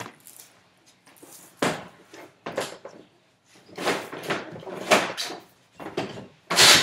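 Rigid plastic body section and tray of a Dura Whelp whelping box being handled and set in place: a series of irregular knocks and scrapes, the loudest near the end.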